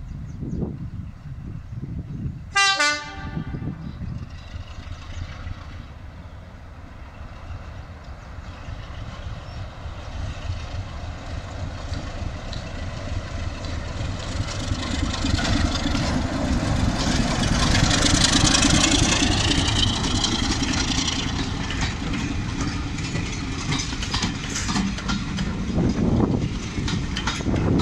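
British Rail Class 33 'Crompton' diesel locomotive giving a short horn blast about two and a half seconds in, then approaching and passing with its diesel engine running and the train's wheels on the rails, loudest about two-thirds of the way through. Near the end, coaches run past close by.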